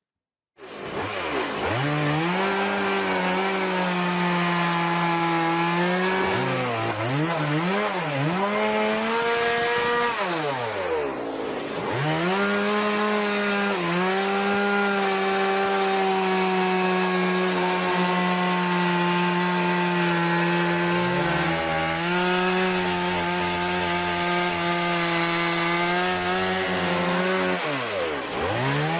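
Gas chainsaw running at high revs while ripping lengthwise through a log in a mill guide. The sound starts abruptly, and the pitch sags and recovers several times as the chain bogs under load in the cut.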